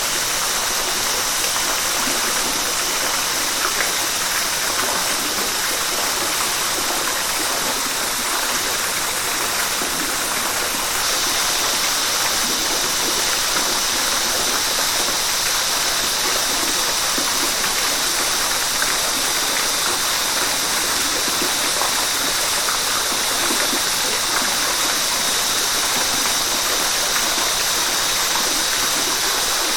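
River water rushing steadily, an even hiss of flowing water that grows slightly brighter about eleven seconds in.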